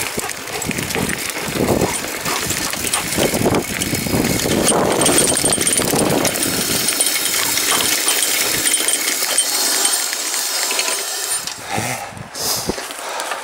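Mountain bike riding fast over rough dirt and gravel: tyres crunching over loose stones, with a constant rattle and clatter from the bike. The noise thins out and becomes patchier near the end as the bike slows.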